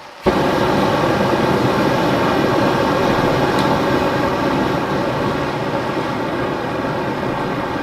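Homemade black-pipe venturi propane burner lighting with a sudden whump just after the start, then running at full gas with a steady loud roar.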